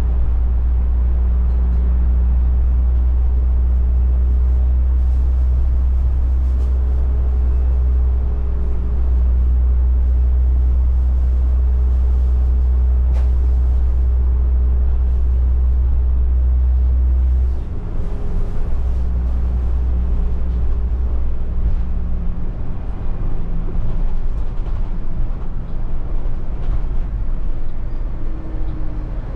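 City bus under way, heard from inside: a loud steady low rumble with a faint whine above it. About two-thirds of the way through, the rumble drops a little and turns rougher.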